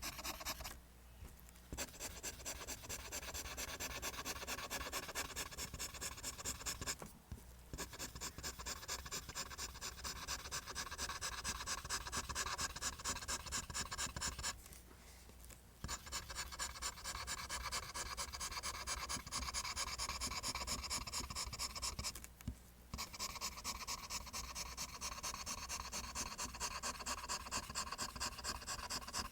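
Pencil drawing lines on paper: rapid, rhythmic back-and-forth scratching strokes, stopping briefly four times, about one, seven, fifteen and twenty-two seconds in.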